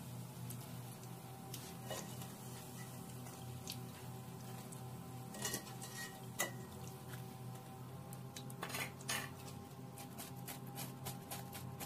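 A wire mesh skimmer clinking and scraping against the rim of an aluminium pot as fried pakoras are lifted out of the oil. The sharpest taps come about five and a half and six and a half seconds in, with a cluster near nine seconds, over a steady low hum.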